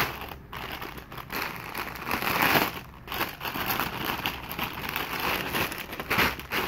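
Clear plastic polybag and plastic courier mailer crinkling as a pair of jeans is unwrapped, in irregular bursts of rustling with brief pauses.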